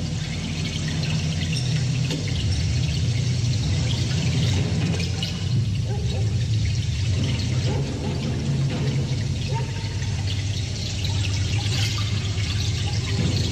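A live punk band playing a loud, noisy passage, heard through a rough recording. A steady low drone sits under a hiss-like wash that fills the upper range.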